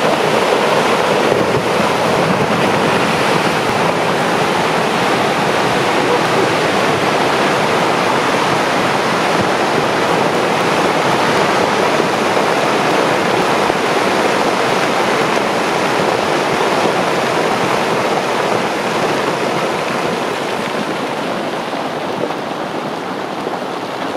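Large rockslide pouring down a mountain slope: a loud, steady rush of tumbling rock and debris that eases a little near the end, then cuts off suddenly.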